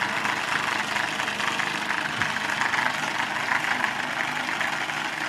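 Small battery-powered handheld-fan motor running at speed, turning the toy paddle boat's skewer axle and paddle wheels through a rubber-band belt: a steady, fast buzzing whirr.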